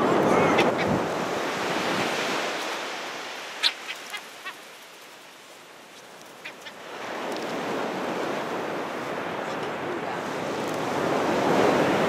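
Ocean surf breaking on a sandy beach: a steady hiss that dies down about halfway and swells again. A few short seagull calls come through about a third of the way in.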